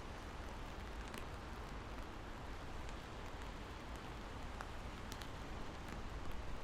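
Steady rain falling, with a few separate drops ticking close by over a low, steady rumble.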